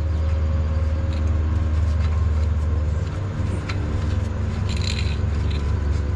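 New oxygen sensor being threaded by hand into a car's exhaust header: a few faint metallic clicks and scrapes over a steady low rumble.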